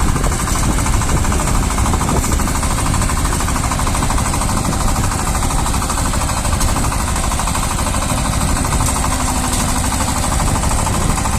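Shifeng SF-240 mini tractor's single-cylinder diesel engine running steadily under load, driving a rotary tiller that churns through the soil, with a fast, even knocking beat.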